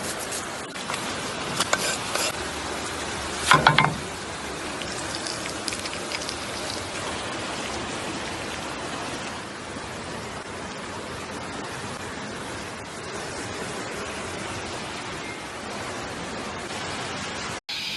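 Food frying in a pan, a steady sizzle. A few light knocks, then a louder clatter about three and a half seconds in.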